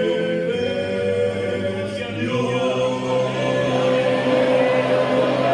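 A group of voices singing a worship song together, holding long notes, with a change of chord about two seconds in.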